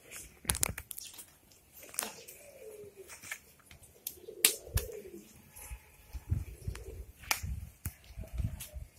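Domestic pigeons cooing: several low coos a few seconds apart. Sharp clicks and taps are scattered in between, and some of these are the loudest sounds.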